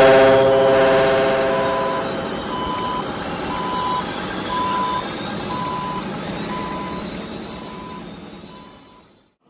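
A truck's reversing alarm beeping about once a second, over a mixed background of motor and crowd noise. A horn note is dying away at the start, and the sound fades out near the end.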